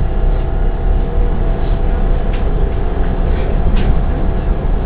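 Inside a moving S-Bahn electric commuter train: steady rumble of the wheels on the track with a faint hum. A few light clicks are heard partway through.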